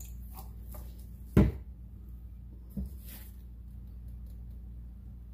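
Plastic squeeze bottle of acrylic paint set down on a table with a sharp knock about one and a half seconds in, then a lighter knock about a second and a half later, over a steady low hum.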